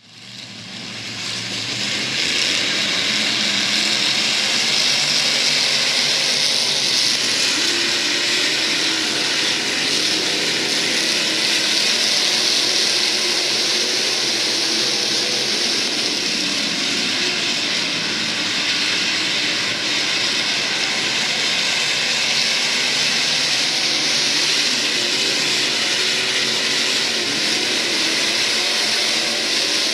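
A field of IMCA SportMod race cars' V8 engines running at racing speed, a steady continuous engine noise from many cars at once that fades in over the first two seconds.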